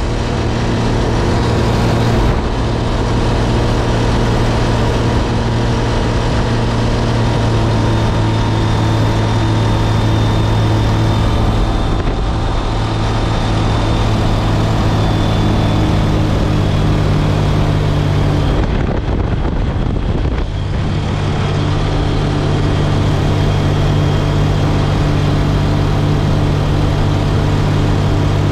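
Raj Hamsa X-Air Hanuman ultralight's engine and propeller droning steadily in cruise, heard from the open cockpit with wind rushing past. About two-thirds of the way through the engine note briefly dips, then settles again at a slightly different pitch.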